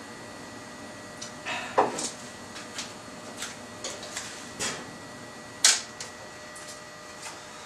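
Scattered clicks and knocks of things being handled and set down at a workbench, about a dozen in all, the loudest about two seconds in and near six seconds. Under them runs a faint steady hiss with a thin hum.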